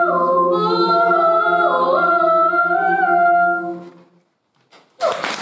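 Women's a cappella group holding the final sustained chord of a song over a steady low bass note, with a solo voice moving on top. The chord fades out about four seconds in, and after a second of silence applause breaks out near the end.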